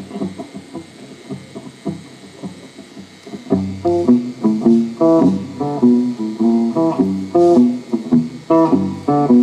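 Live band music with guitar playing plucked notes over a low bass line. It is quieter at first and grows louder and fuller about three and a half seconds in.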